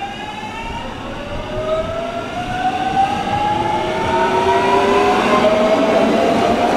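JR Kyushu 813 series electric train accelerating past, its traction motors whining in several tones that rise steadily in pitch, over the rumble of the wheels on the rails. It grows louder from about halfway in as the train comes alongside.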